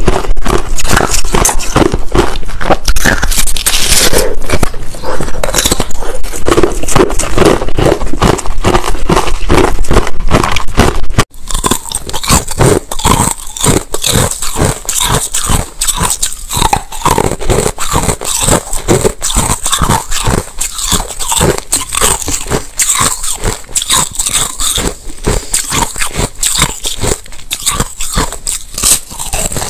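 Ice bitten and chewed close to the microphone: a rapid run of crisp crunches and cracks. At first it is a handful of crushed ice; after a sudden cut about eleven seconds in, it is thick discs of white frozen ice.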